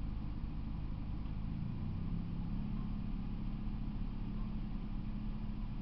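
An engine running steadily with a low hum, its note shifting about two seconds in.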